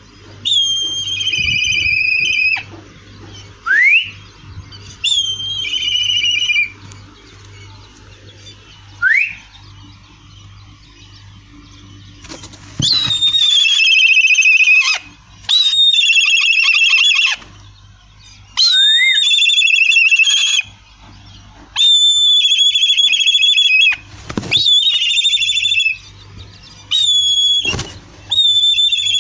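Black kite calling: a few short rising whistles, then a series of long, wavering, slightly falling whistled calls of about two seconds each, repeated with short gaps.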